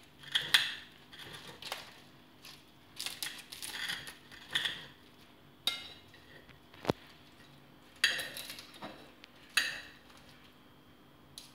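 Knife and fork cutting through the crisp fried fyllo pastry around saganaki cheese: a series of short crunches, with cutlery scraping and one sharp clink on the ceramic plate about seven seconds in. The crunch shows the fyllo is fried properly crisp.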